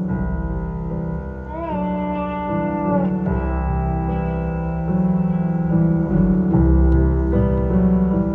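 Live band playing a slow instrumental passage: piano chords over deep bass notes, with a melody line that slides up into a held note about two seconds in.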